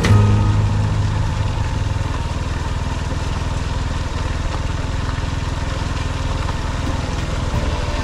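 Honda CB190 motorcycle's single-cylinder engine running steadily at low revs while riding slowly on a gravel track. The note is a little stronger in the first second or so, then evens out.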